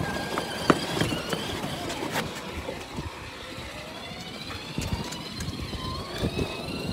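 Battery-powered ride-on toy Jeep driving over concrete: its electric motors whine and the plastic wheels rumble, the whine rising slowly in pitch through the second half. A sharp knock sounds near the start.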